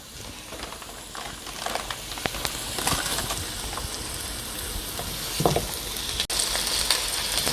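Hot oil sizzling in a frying pan with onions as frozen chicken tenderloins go in; the sizzle grows louder about two seconds in.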